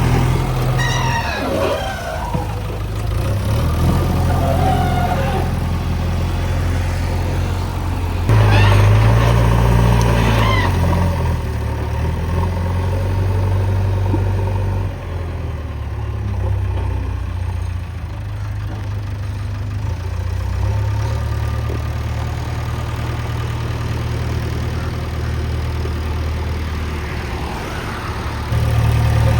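JCB 3DX backhoe loader's diesel engine running as the machine works, revving up about a third of the way in and again near the end, and dropping back toward idle in between.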